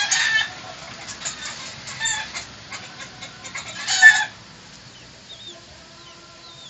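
Chickens calling in the background: a run of short calls at the start, a few more around two seconds in, and the loudest call about four seconds in, then quieter with a few faint chirps near the end.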